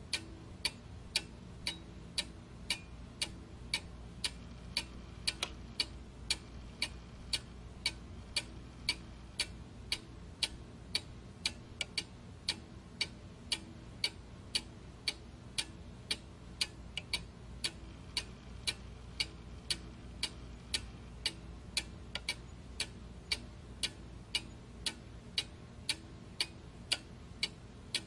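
Steady, even ticking, about two ticks a second, like a clock, over a faint low hum.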